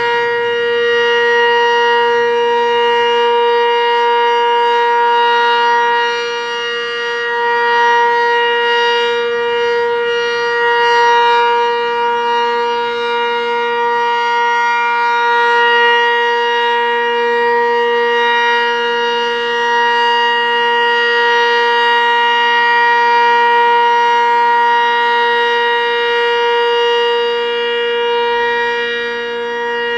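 Sentry 20V2T dual-tone electromechanical warning siren sounding a loud steady tone at full speed, its pitch holding level while its loudness swells and dips gently every few seconds.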